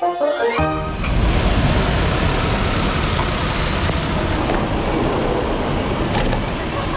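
A musical phrase ends within the first second, then a steady, even rushing noise with a deep rumble continues unchanged.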